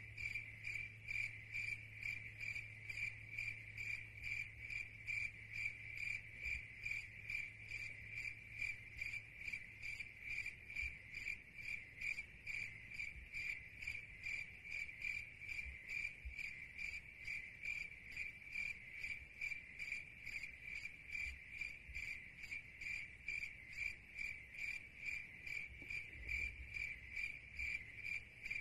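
Cricket chirping steadily and rhythmically, about two chirps a second, on one high pitch.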